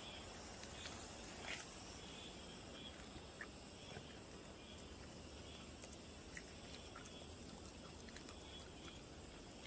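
Faint outdoor ambience: a steady high-pitched drone, with soft rustles and a few small ticks as a dog sniffs and noses through weeds and stones.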